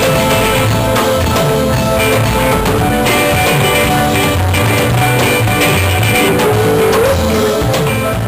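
Instrumental passage of a rock song: guitar over a drum kit, with no singing.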